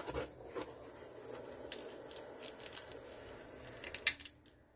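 Butane soldering iron with a hot-air tip giving a steady faint hiss, with a few light clicks, as it is used to shrink heat-shrink tubing over spliced wires. After a sharper click about four seconds in, the hiss cuts off.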